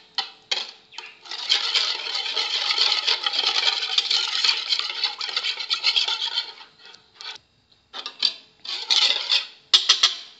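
Wire whisk beating egg, oil and milk in a ceramic bowl, its wires scraping and clattering against the bowl in a fast continuous run, then in a few short bursts near the end.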